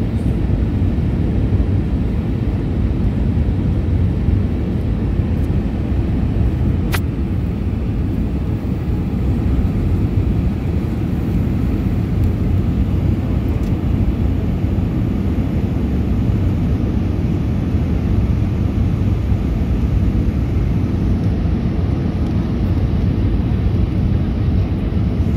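Steady, deep noise inside an airliner cabin on approach, made by the jet engines and the air rushing past, heard from a window seat beside the engine. A single sharp click about seven seconds in.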